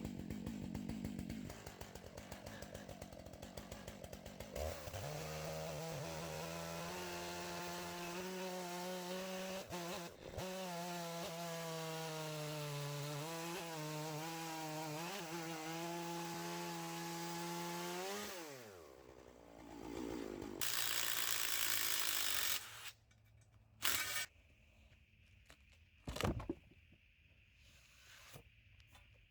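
Stihl chainsaw on an Alaskan chainsaw mill ripping through an oak log, held at a steady full-throttle note under load for most of the time. About 18 seconds in the throttle is released and the engine note drops away, followed by a few seconds of loud hiss and a couple of isolated knocks.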